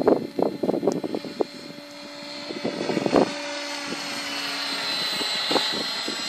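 700-size radio-controlled helicopter in flight: a steady high whine from its motor and rotor, with a lower hum for a couple of seconds in the middle. Irregular crackling knocks on the microphone die away over the first second or so.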